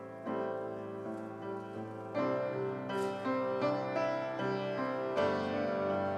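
Instrumental keyboard music in a church service: slow chords held and changed about once a second.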